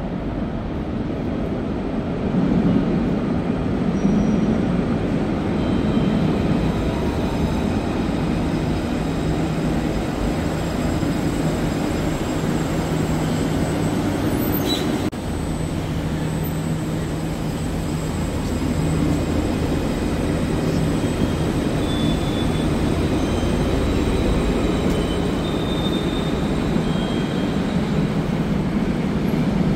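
Rail vehicles moving through underground stations: a steady low rumble with a humming drone, a light-rail tram and a metro train. A short break about halfway changes the sound, and faint high tones come in briefly later on.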